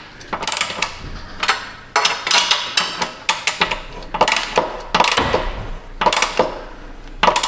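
Hand wrench tightening bolts on a car's exhaust flange: a run of irregular metal clicks and clinks.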